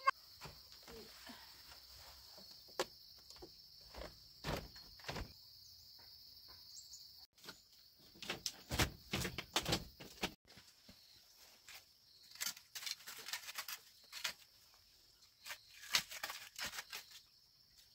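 Scattered knocks, taps and rustles of handling and footsteps, with wooden sticks clattering near the end as firewood is laid in a fire pit. A steady high-pitched drone runs behind and drops out for a few seconds partway through.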